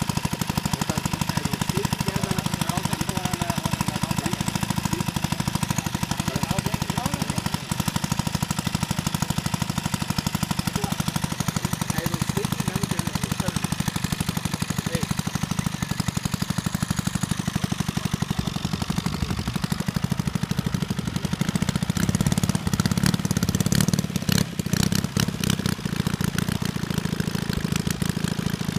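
Valach 120 B2-4T four-stroke twin-cylinder engine of a 1:3 scale Savage Bobber RC plane running on the ground with a fast, even beat. It grows louder and rougher for a few seconds about three-quarters of the way through.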